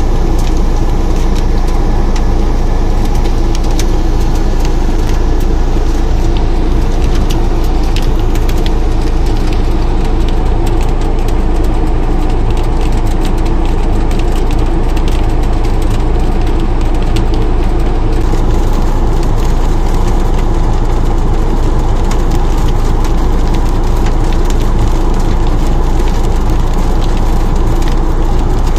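Rain falling hard on a surface: a dense, steady crackle of sharp drop impacts over a constant low rumble.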